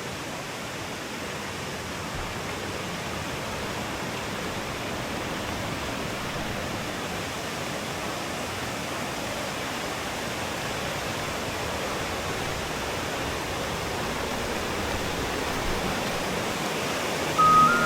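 Small waterfall: water pouring and rushing as a steady, even noise.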